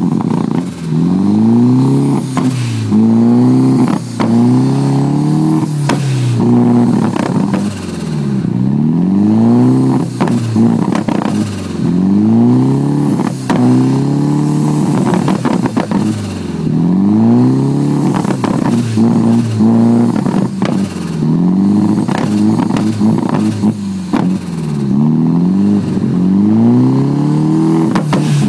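Nissan 240SX engine at a rough idle, its speed repeatedly rising and falling about every two seconds, with scattered clicks and pops.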